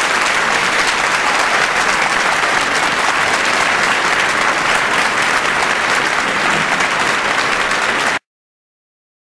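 A large audience applauding steadily, a dense even clatter of many hands clapping; it cuts off abruptly about eight seconds in.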